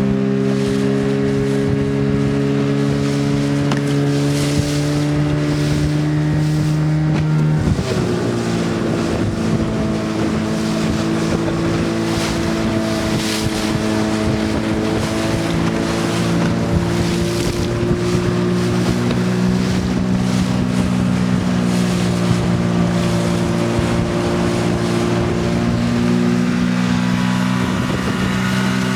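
Motorboat engine running steadily under throttle, with wind and water rushing past. About eight seconds in the revs drop suddenly, then settle at a lower, slightly wavering speed.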